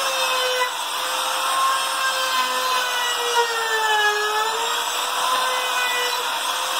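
Handheld trim router running steadily with a high whine as its bit cuts a 45-degree chamfer along the edge of a wooden piece. The whine dips in pitch briefly a little past the middle as the bit bites harder into the wood.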